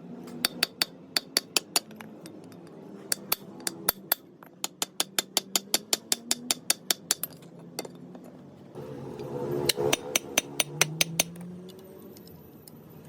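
Runs of quick, sharp metal-on-metal hammer taps, about five a second, broken by short pauses, while truck brake linings are being rebuilt by hand. The loudest run comes about three quarters of the way in, with a rougher scraping noise under it.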